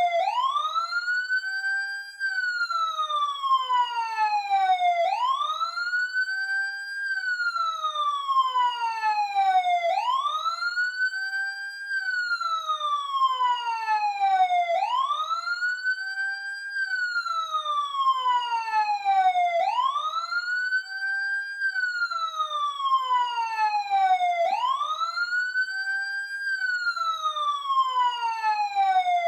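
Emergency vehicle siren sounding a slow wail. Each cycle rises quickly to a high pitch and then slides slowly back down, repeating about every five seconds, about six times.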